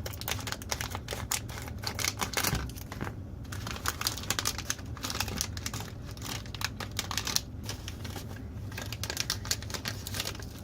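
Irregular small clicks and taps of hands handling small electronics parts, over a steady low hum.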